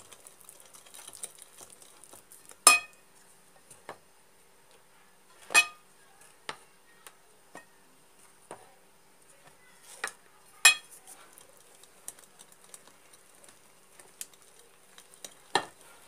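A metal whisk clinking against a glass mixing bowl while flour is stirred into the dough: about six sharp clinks, each ringing briefly, with the loudest about three seconds in and about ten seconds in, and soft mixing sounds between them.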